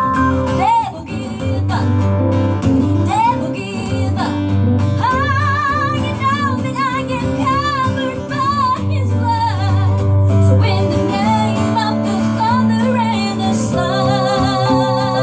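A woman singing long held notes with wide vibrato over strummed acoustic guitar, a live country-gospel song.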